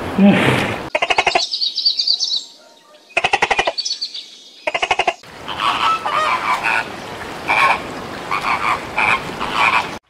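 A hippo's low call ends, and then come four bursts of rapid rattling croaks. After that, a flock of flamingos honks and calls, many voices overlapping.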